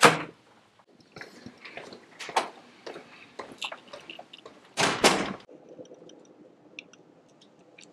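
A door shuts with a bang, followed by scattered knocks and rustles. About five seconds in comes a louder rustle, then small crackles as a cardboard cracker box is handled.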